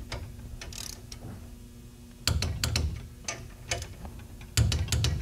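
Torque wrench ratcheting in short strokes as a connecting rod's cap bolts are tightened to 45 foot-pounds, with louder metallic clacks about two seconds in and again near the end.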